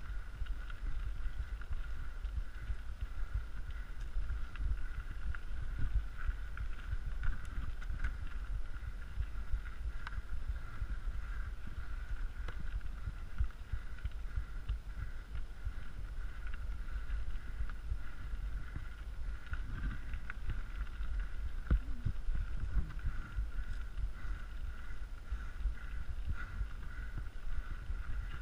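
Mountain bike riding over a loose gravel trail, recorded on a GoPro: a steady low rumble of wind and trail vibration, small rattles and knocks from the tyres and bike, and a steady high whine.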